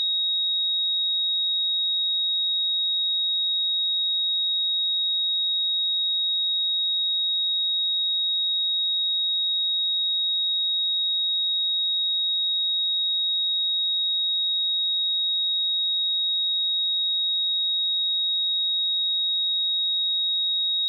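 A pure sine-wave test tone at 3778 Hz, held at one steady high pitch and level without a break.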